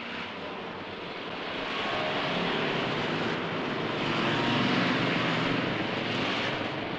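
Dense street traffic: small cars and a motor scooter driving past with their engines running, the noise swelling for a few seconds in the middle.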